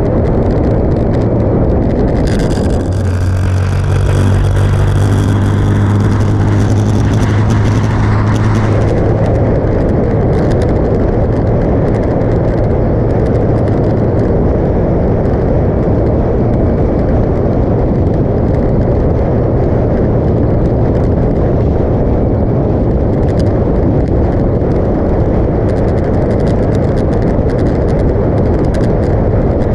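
Motorcycle engine running at steady road speed under heavy wind rush on the microphone. A stronger, steady engine note stands out from about two to nine seconds in, then drops back into the rumble.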